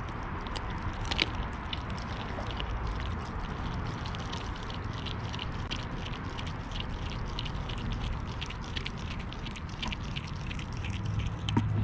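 Lycan Shepherd puppy chewing a whole raw fish: a run of quick, irregular wet crunches and clicks as its teeth work through the bones and scales.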